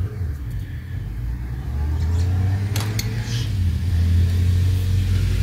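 Steady low engine-like rumble that grows louder about two seconds in, with a couple of sharp clicks near the middle.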